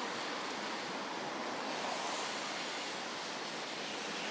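Steady, even hiss of a rain-soaked street, with no distinct events standing out.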